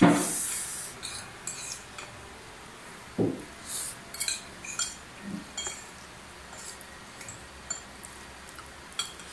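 Metal fork and spoon clinking and scraping against a ceramic bowl while noodles are eaten: scattered short, irregular clicks, with a few duller knocks of the bowl. A brief louder burst comes right at the start.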